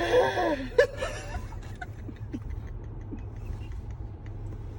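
A short wordless vocal sound from a person at the start, then a steady low rumble of a car cabin with faint scattered clicks and rustles, one sharper click just under a second in.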